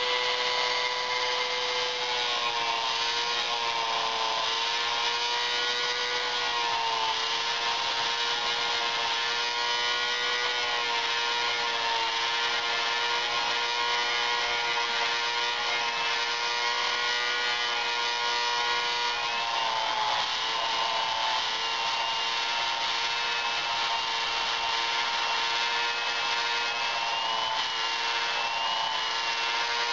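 Dremel rotary tool running with a steady high-pitched whine as it shapes the end of a small wooden dowel knife handle; the pitch dips briefly several times, around 2, 7, 20 and 28 seconds in, as the bit is pressed into the wood.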